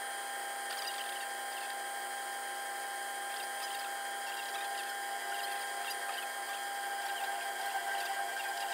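Engineer's lathe running at 900 RPM with a steady whine, its 6 mm end mill cutting a slot into a brass disc with a light irregular scratching. The cut grows a little louder near the end.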